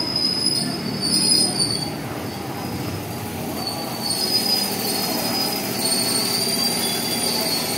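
JR 205 series electric multiple unit rolling along the station platform: a steady rumble of the cars, with a thin high-pitched wheel squeal that comes and goes at first and holds more steadily from about halfway through.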